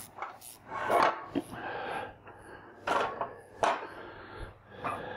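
Metal extension tables of a Shopsmith Mark 7 being slid off and handled: a few sharp clunks, the loudest about a second in, with rubbing and scraping between them.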